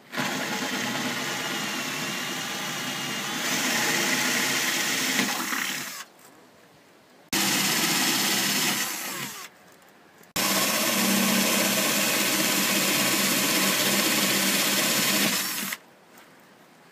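Power drill drilling new mounting holes in a Sea-Doo jet ski hull for the sponsons, running in three spells: a long one, a short one about seven seconds in, and another long one, each cut off sharply.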